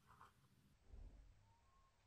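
Near silence: faint room tone with a soft low bump about a second in.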